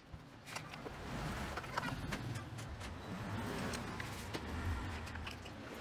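Clicks, knocks and rubbing from a homemade angle-grinder miter saw as its head is pulled down and moved on its wooden jig and sliding rails, with no clear motor whine.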